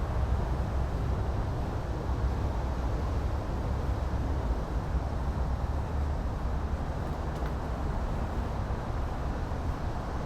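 Steady low rumble of outdoor background noise with no distinct events, the kind made by distant traffic or wind on the microphone.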